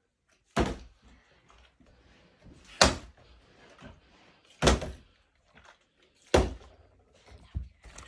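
A plastic water bottle being flipped and landing hard, four sharp thuds about two seconds apart.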